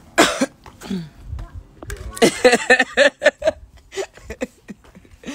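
A person's voice, with no clear words: a sharp loud cry just after the start, then a quick run of short, evenly spaced syllables about two seconds in, like laughter.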